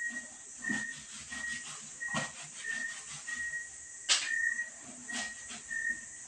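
Clothes being hand-washed in a plastic bucket of water: about four splashes and wet slaps as the cloth is worked and lifted. Under them a faint high-pitched tone repeats in short beeps, a little under two a second.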